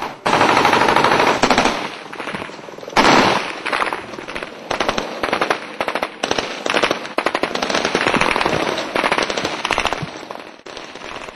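Bursts of automatic gunfire, rapid shots in runs several seconds long, loudest near the start and again about three seconds in.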